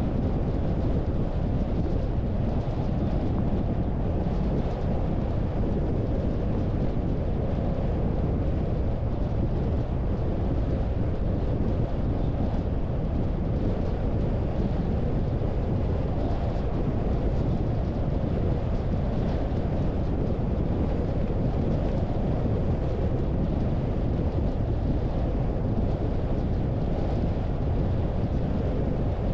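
Steady low road and wind noise of a car driving at an even speed: a constant rumble with no changes.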